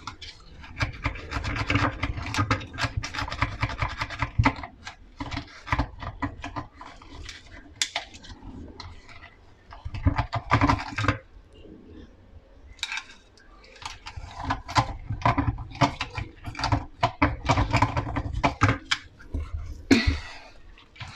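Irregular rubbing, scraping and knocking of parts being handled inside a dishwasher, in uneven clusters with short lulls.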